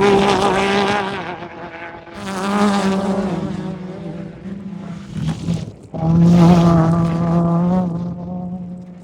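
Off-road race vehicles passing one after another at full throttle, engines running steadily: one fades away in the first second, another comes by about two seconds in, and the loudest comes by about six seconds in.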